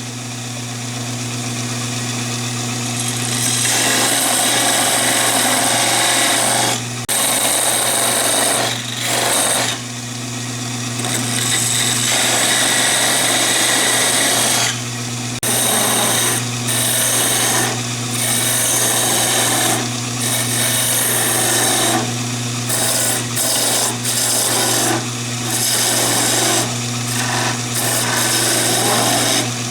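Conover wood lathe running with a steady motor hum while a turning tool cuts into the spinning wooden chair-leg blank, shaping the shoulder and cove diameters. The cutting noise breaks off briefly many times, and the hum continues underneath.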